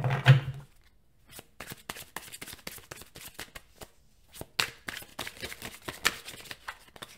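A tarot deck being shuffled by hand: a long run of quick, irregular card flicks and slaps.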